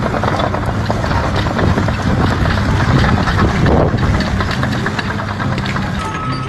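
An engine running steadily, with a low rumble and clatter, and a short high beep near the end.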